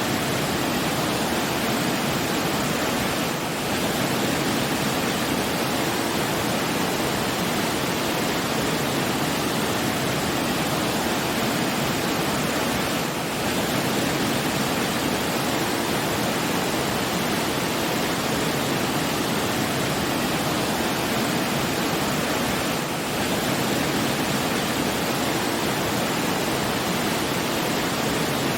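Steady rushing noise of flowing water, like a waterfall or stream, dipping slightly about every ten seconds.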